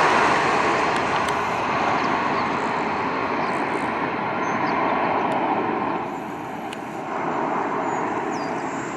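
Aircraft engine noise at an airfield: a steady broad rush that eases for about a second, some six seconds in, then picks up again.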